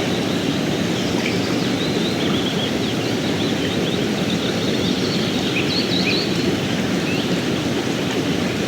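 Mountain stream rushing steadily, with small birds chirping briefly and faintly above the water.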